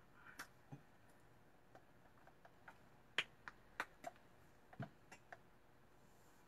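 Faint, sharp clicks and light taps at uneven intervals, about a dozen in all, from a tea cup and honey container being handled as honey is added to a cup of ginger lemon tea.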